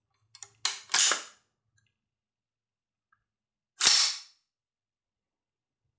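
Action of an M16A1-pattern AR-15 being worked to clear it. About a second in, the charging handle and bolt carrier are racked back with two sharp metallic clacks close together. Near four seconds, one louder sharp clack comes as the bolt closes.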